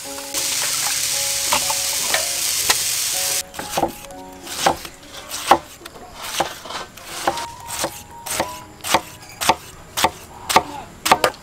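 A steady hiss for about three seconds, then a cleaver slicing through peeled pineapple and knocking onto a wooden chopping block in quick, even strokes, about two to three cuts a second, over light background music.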